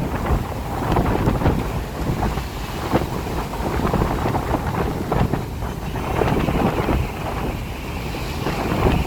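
Strong wind buffeting the microphone, a low rumbling noise that swells and eases in gusts.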